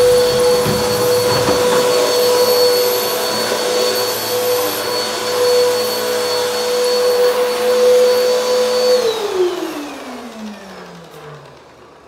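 Helix Turbo upright vacuum cleaner running on carpet with a steady high whine. About nine seconds in its motor is switched off and winds down in a falling whine that fades over a couple of seconds.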